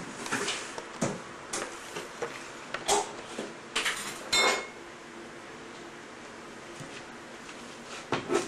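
Dishes and cutlery clinking and knocking: a quick run of separate clatters, one with a short ringing ping, then a lull and one more clink near the end.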